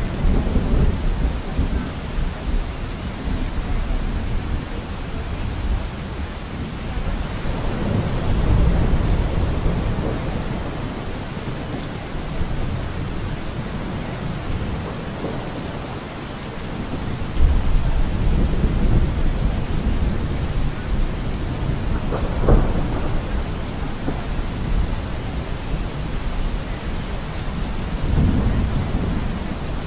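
Steady rain falling, with low rolling rumbles of thunder swelling several times and a sharp crack about two-thirds of the way through.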